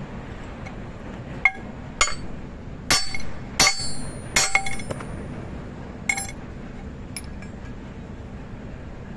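Light metallic clinks as a steel circlip and pin are handled against the steel plates of a reclaimer chain link. About seven clinks, mostly bunched in the first half, one leaving a short high ring, over a steady low hum.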